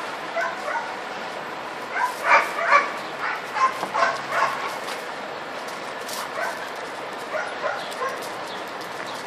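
A dog making short, high-pitched yips and whines. There is a quick run of them about two seconds in, more just before the middle, and scattered single calls later.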